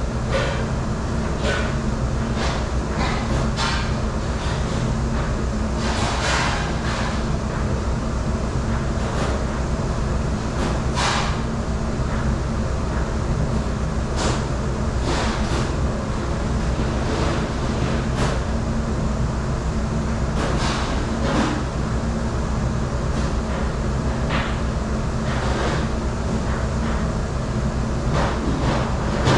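Steady drone of a commercial dish machine running, with frequent clatter of dishes and utensils being handled.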